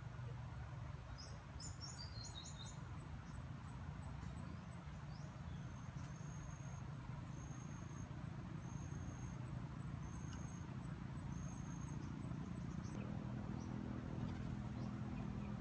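Rural outdoor ambience: insects keep up a steady high-pitched drone, and a bird gives a quick falling twitter about two seconds in. A short high chirp repeats about once a second through the middle, over a low steady hum.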